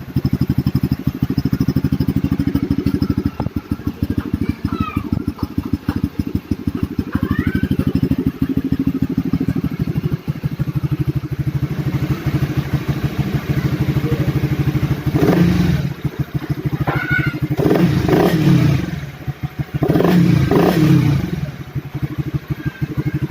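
Honda RS150's single-cylinder four-stroke engine running through an aftermarket Reborn exhaust canister, idling with rapid exhaust pulses, then revved briefly three times in the second half.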